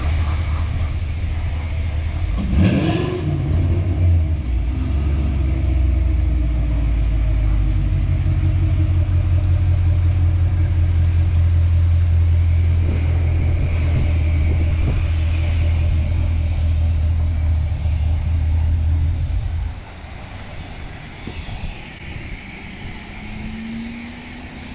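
Chevrolet Camaro SS's 6.2-litre V8 running with a loud, low steady rumble and a short rev about three seconds in. Near the end the rumble drops away suddenly, leaving a quieter hiss.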